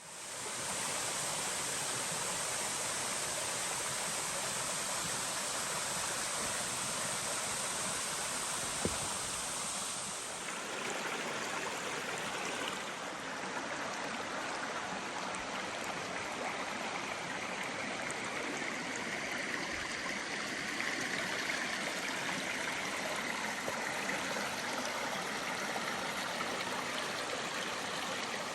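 Steady rush of flowing stream water. About ten seconds in the sound changes, losing some of its high hiss and taking on a fuller, mid-pitched rush.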